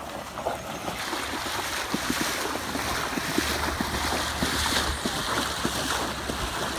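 Floodwater sloshing and splashing in irregular small knocks as people move through it, with wind rumbling on the microphone from about three and a half seconds in.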